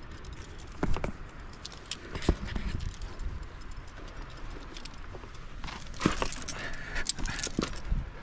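Metal climbing hardware clinking and knocking, with scattered scrapes, as a climber handles gear on rock. The clinks come a few at a time, with a busier run of metallic jingling near the end.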